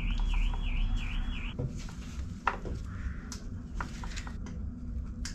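A high warbling chirp repeating about three times a second, stopping after about a second and a half. Then scattered light clicks and taps as ignition HT leads are handled and laid over the engine, over a steady low hum.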